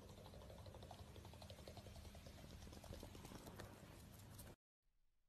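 Near silence with faint, quick ticking: a hedgehog's small claws tapping on a wooden floor as it scurries along.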